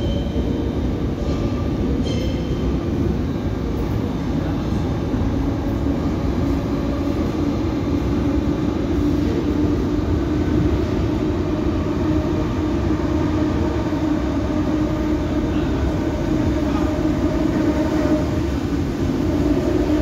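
Athens metro train pulling out of an underground station, followed by the next train coming in from the tunnel and running along the platform: a continuous rail rumble, with a humming tone that grows in the second half as the incoming train draws in.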